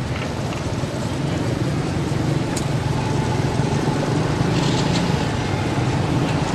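Road traffic: motor vehicles running by, a steady low rumble that swells slightly about a second in and holds.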